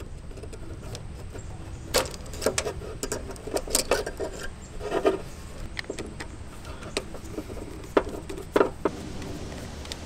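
Scattered clicks and scrapes of wires being taken off an old single-pole AC contactor: a screwdriver working its terminal screws and spade connectors coming off its metal tabs. The two sharpest clicks come near the end.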